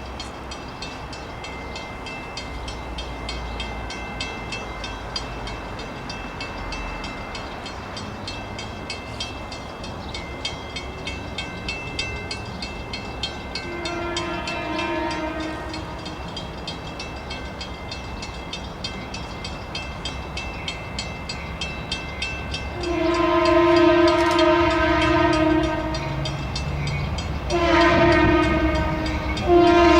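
Approaching diesel locomotive rumbling, then its multi-chime air horn sounding four blasts: a short one about halfway through, a long one, a short one and another starting at the very end.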